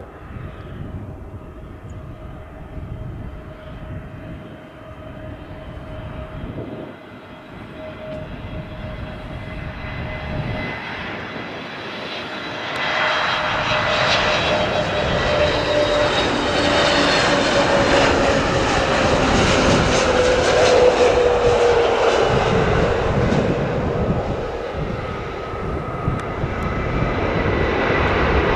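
Jet engines of an Aer Lingus Airbus airliner on final approach to land, a steady whine that grows much louder about halfway through and slides down in pitch as the aircraft passes.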